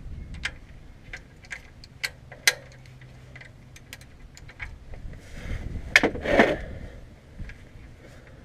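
Metal hand tools clicking and clinking while the oil drain plug is worked on: scattered sharp metallic ticks, with a louder clatter about six seconds in.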